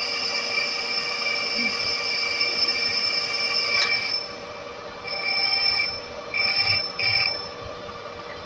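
Manual metal lathe's tool bit cutting an aluminium pulley, giving a high-pitched whine over the steady hum of the running lathe. The cutting whine holds for about four seconds, then comes in three or four short bursts as the feed stops and starts.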